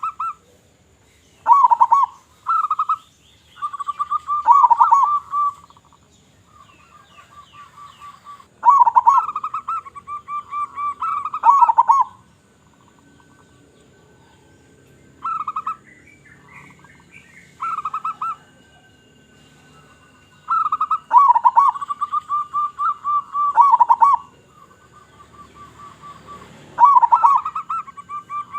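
Local zebra dove (perkutut) cooing with a big voice: about seven phrases of quick, rolling trilled notes, the longer ones dipping at the end, with gaps of a few seconds between. Faint thin high tones sound in the background.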